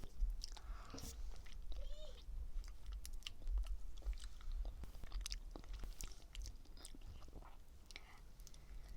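Close-up chewing of strawberry mochi: soft, wet mouth sounds with many small clicks and smacks as the sticky rice cake and strawberry are bitten and chewed.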